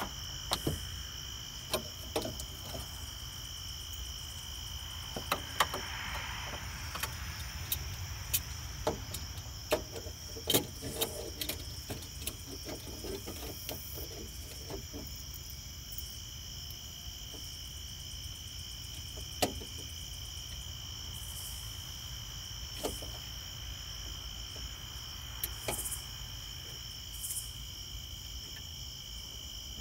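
Scattered light clicks and taps of hand work on the car's hood latch and its metal mount, over a steady high-pitched trill that briefly breaks off about six seconds in.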